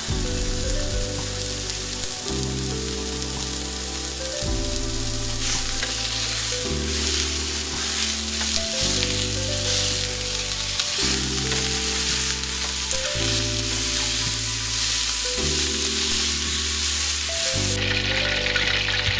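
Raw hot Italian sausage sizzling as it fries in a hot nonstick skillet, with the scrape and clatter of a wooden spatula breaking it up and stirring; the sizzle grows stronger about five seconds in. Background music with chords that change about every two seconds plays underneath.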